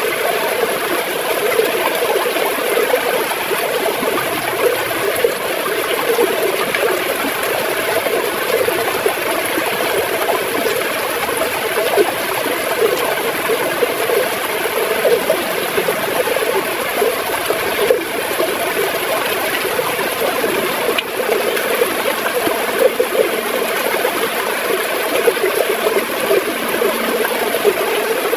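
River water flowing and gurgling steadily over stones, with a dense babble of small splashes.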